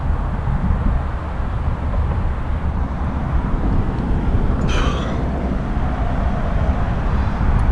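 Steady low outdoor rumble of road traffic and wind on the microphone, with one brief high-pitched squeak about five seconds in.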